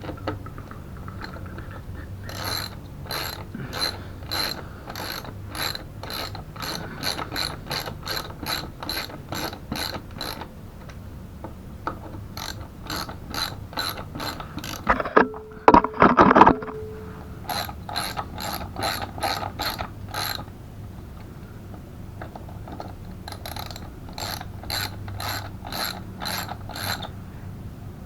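Hand ratchet wrench turning a bolt on a mobility scooter's front end, clicking in four runs of about three clicks a second. About halfway through there is a louder metal clank with a short ring, the loudest sound here.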